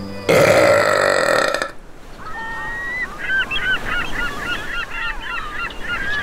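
A loud rushing burst lasting about a second and a half, then a quick run of short honking bird calls, goose-like.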